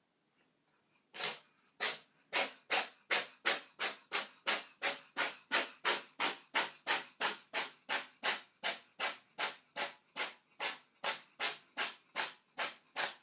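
An animal's rapid breathing: short, even, hissing puffs of breath at about three a second, starting about a second in.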